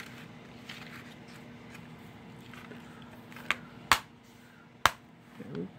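Plastic DVD case being handled and snapped shut: soft rustling, then sharp clicks a little after three and a half seconds in and just before four, and one more about a second later.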